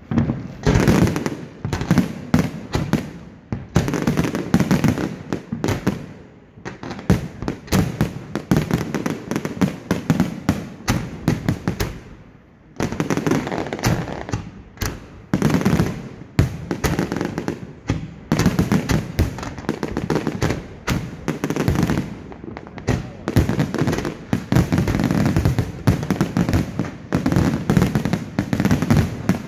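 Aerial fireworks going off in a dense, continuous barrage of bangs and crackling, with a short lull about twelve seconds in.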